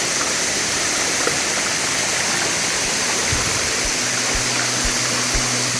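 Lanka Ella waterfall: a steady rush of falling water. From about three seconds in, background music with a low regular beat comes in underneath.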